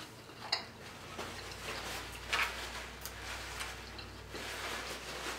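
Close-miked chewing of a mouthful of leafy salad: scattered soft crunches and mouth clicks, with sharper crunches about half a second and a little over two seconds in, over a low hum that starts about a second in.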